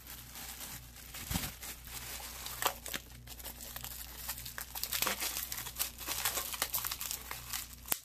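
Plastic bubble wrap crinkling as hands pull it open and peel it off a phone: a dense, irregular run of small crackles.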